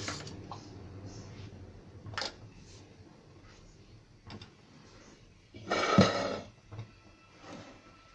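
A spoon knocking and scraping against a bowl of soup: a few soft taps, then one louder clatter about six seconds in.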